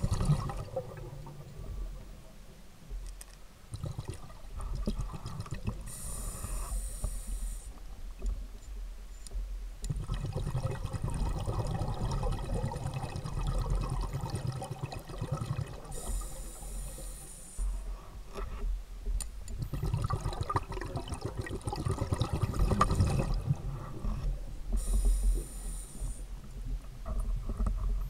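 Scuba diver breathing through a regulator underwater. A short hissing inhale comes about every nine to ten seconds, three times, and each is followed by several seconds of bubbling, gurgling exhaled air.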